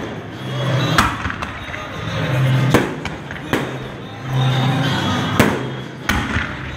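Aerial fireworks shells bursting overhead: sharp bangs about every second or two, five in all.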